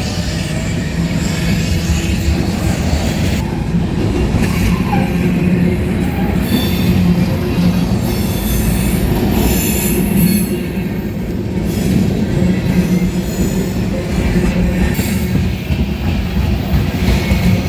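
CSX freight train's cars rolling past over the rails with a loud, steady rumble, the wheels squealing in high-pitched streaks through the middle.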